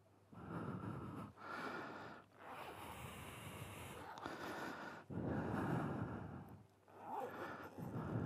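A rider's breathing picked up close by the helmet-mounted Sena 10C Evo camera's microphone: a run of in- and out-breaths, each about a second long, with short pauses between.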